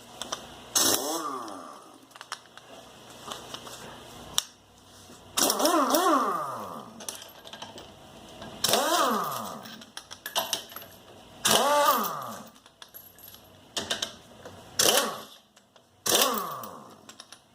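Power impact wrench driven in short trigger bursts on the wheel's lug nuts, about five times, its motor whirring up in pitch and winding back down each time. Metallic clinks of the socket and loose nuts come between the bursts.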